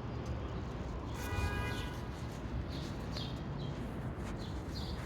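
Birds chirping several times over a steady low rumble, with one held, tuneful call about a second in.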